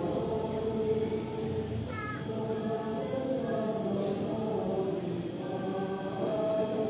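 Church congregation singing a hymn together, many voices holding long notes.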